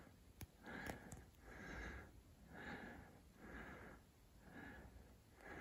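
Faint, quick breathing of a person close to the microphone, a breath about every second, with a few tiny clicks near the start.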